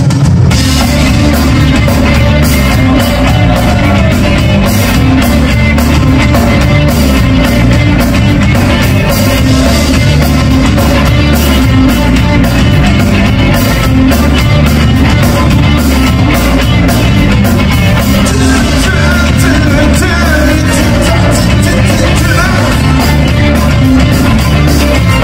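Live rock band playing loudly with electric guitar, bass guitar and drum kit, the drums keeping a steady beat.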